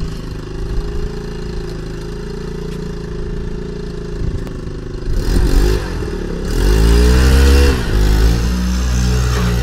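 Go-kart's small 79cc four-stroke engine idling steadily, then revving up and down from about five seconds in as the kart pulls away, loudest a second or two later.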